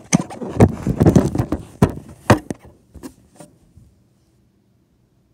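A run of bumps, knocks and rubbing right on the microphone as the camera is handled, dying away to quiet at about four seconds in.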